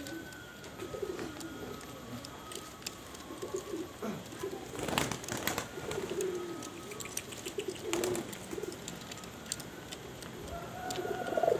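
Domestic pigeons cooing over and over, with bursts of wing flapping about five and eight seconds in as a young pigeon takes off and is caught.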